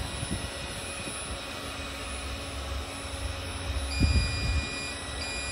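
Hobot window-cleaning robot running on a glass pane: its suction fan gives a steady whine while it drives across the glass. About four seconds in a low rumble swells and a second, higher tone joins the whine.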